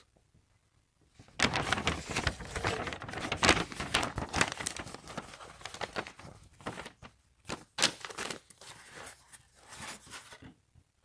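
Paper instruction sheets and packaging rustling and crinkling as they are handled, starting about a second and a half in. The noise turns quieter and more scattered about halfway through.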